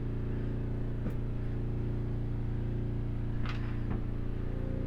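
Steady low machine hum with even overtones, with a couple of faint clicks about one and three and a half seconds in.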